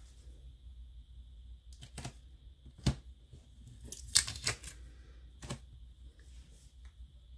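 Handling sounds: a few scattered taps and clicks as a knotted nylon-cord bracelet strung with glass beads is moved and picked up, the sharpest click about three seconds in and a small cluster of rustles a second later.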